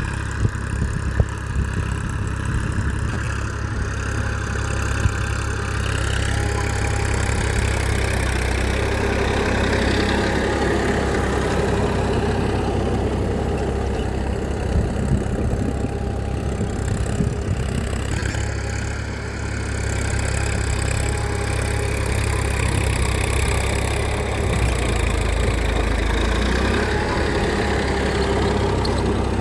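An engine-like motor running steadily, with a few sharp clicks about a second in.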